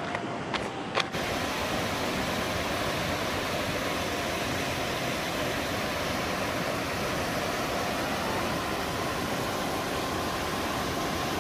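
A few footsteps on dry, crumbly ground, then from about a second in a steady rush of muddy floodwater pouring through a washed-out earth crossing and over broken concrete culvert pipes in rapids.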